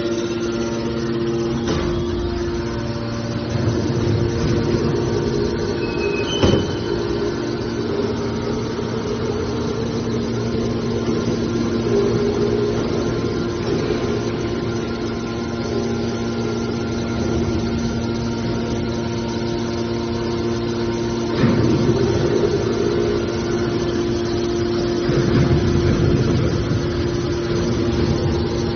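Hydraulic scrap metal baler press running, its pump motor giving a steady hum. A sharp knock comes about six seconds in, and louder clattering stretches come near the end.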